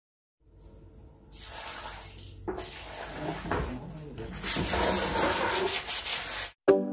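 A stiff plastic hand brush scrubbing wet paving stones in soapy water, with water splashing. It grows louder in the second half and stops suddenly just before the end.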